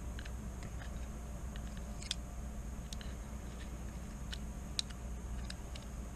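Scattered light clicks and taps of a thin screwdriver shaft working inside a Ruger 10/22 trigger group, nudging a spring that has come loose back into place. A faint steady low hum lies underneath.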